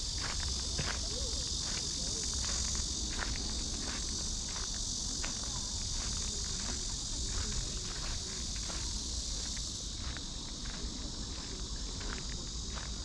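Cicadas buzzing in a steady dense summer chorus, with footsteps on a path ticking through it about once or twice a second.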